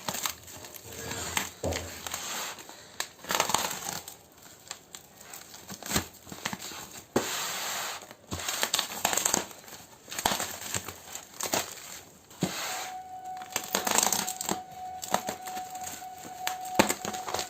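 Cardboard shipping box being opened by hand: packing tape tearing and cardboard and packing material rustling and crinkling in irregular bursts, with sharp clicks and knocks.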